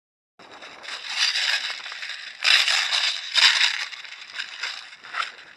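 Loud rustling and crunching close to the microphone, coming in several irregular bursts, starting abruptly after a brief silence.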